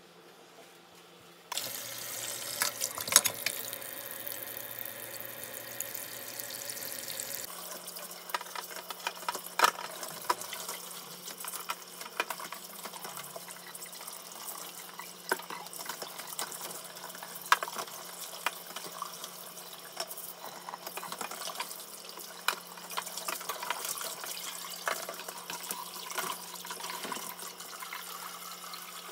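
Kitchen tap turned on about a second and a half in, water running into a sink with frequent knocks and clatter of things being handled under the stream. The sound of the flow changes about seven seconds in.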